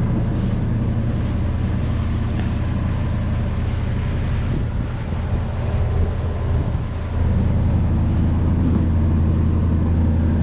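A sailboat's auxiliary engine runs steadily under way while motor sailing, with wind on the microphone. The engine grows a little louder about seven seconds in.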